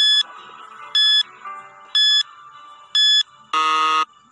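Quiz countdown timer sound effect: four short, high beeps about once a second, then a longer buzzer tone near the end signalling that time is up.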